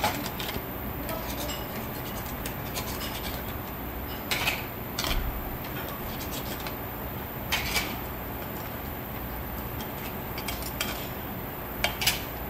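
Metal tongs clinking and scraping against a stainless-steel hot pot and the shellfish in it, with a handful of sharp clinks (two close together near the end) over a steady low hum.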